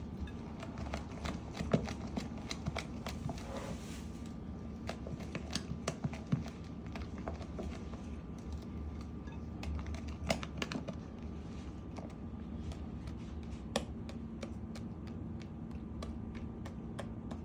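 Irregular light clicks and taps of a kitchen utensil against a bowl and dish as a creamy mixture is spooned and spread, over a low steady hum.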